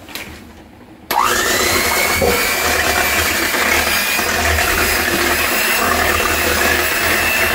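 Electric hand mixer switched on about a second in, its motor whining quickly up to speed and then running steadily as the beaters whisk milk into froth in a steel pot.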